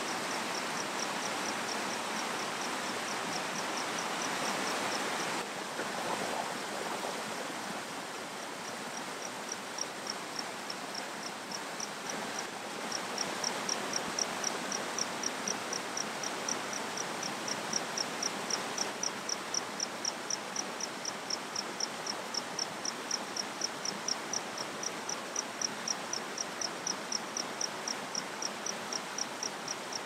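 Small forest stream rushing over rocks, a steady hiss, with an insect chirping in an even high pulse of about four or five chirps a second. The chirping breaks off for a few seconds after about five seconds, then resumes and holds steady.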